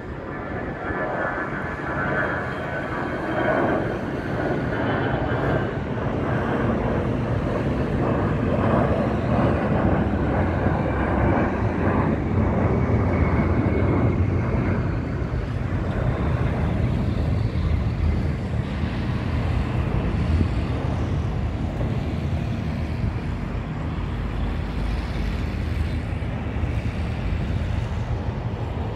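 Jet roar of an Airbus A319-111's CFM56 turbofans at takeoff climb power as the airliner climbs away. A high whine is heard over the roar in the first few seconds, then a deep rumble dominates through the middle and eases a little near the end.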